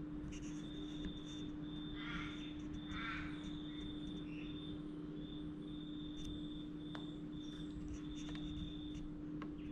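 A bird calls twice, about two and three seconds in, over a steady hum and a high tone that keeps switching on and off.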